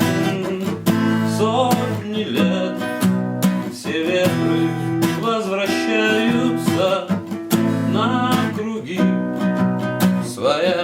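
Acoustic guitar strummed in steady chords, the closing instrumental bars of a song.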